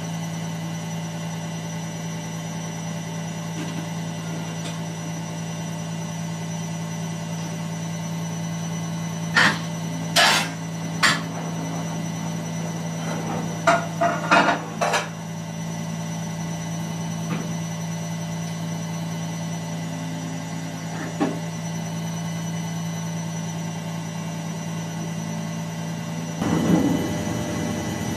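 Excavator's diesel engine running steadily at a low hum, with sharp metallic clanks of the bucket working the road surface, bunched in two short clusters partway through and a couple more later. Near the end the sound swells louder and rougher.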